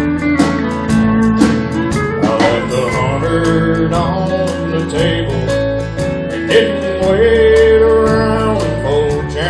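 Live country band playing an instrumental break: pedal steel guitar with sliding notes over strummed acoustic guitar and a steady drum beat.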